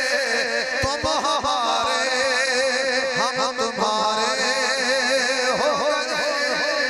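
A man's voice chanting in a drawn-out, melodic style into a microphone over a public-address system, with wavering held notes. A steady high tone runs underneath.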